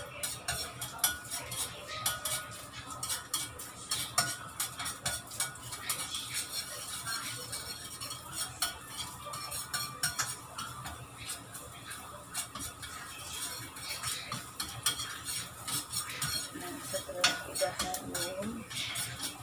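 A spatula stirring and scraping in a frying pan with many irregular clinks, over a light sizzle of ginger sautéing in oil.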